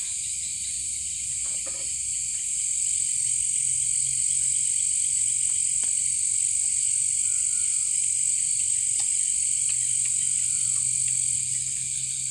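Tropical forest night chorus of insects and frogs: a steady high-pitched drone of crickets with a few short falling calls over it. There are a few light clicks.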